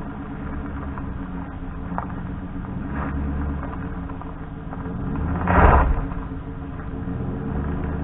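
A vehicle engine running steadily at low revs, with a brief louder surge about five and a half seconds in.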